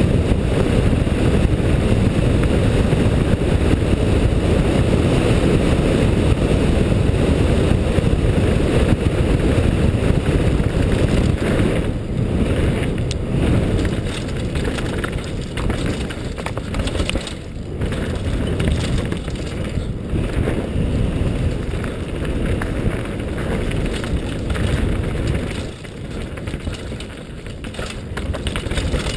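Wind rushing over a helmet camera and the tyre noise of a Cove Shocker downhill mountain bike running fast down a gravel road. About twelve seconds in the sound turns uneven, with knocks and rattles as the bike rides over roots and rocks on a dirt singletrack.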